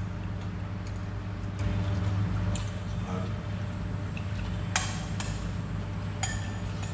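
Three light clinks of dishes or cutlery, about two thirds of the way in, over a steady low hum.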